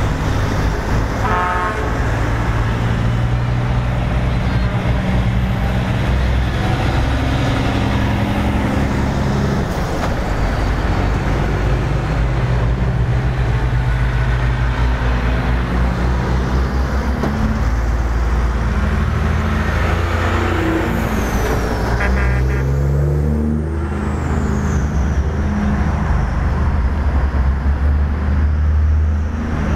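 Heavy trucks driving past one after another, their diesel engines running, with short truck horn toots about a second and a half in and again about twenty-two seconds in.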